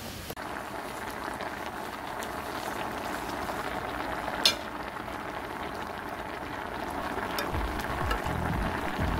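Spicy Korean chicken stew boiling hard in a pot: a steady crackling hiss of bursting bubbles, with one sharp click about halfway through.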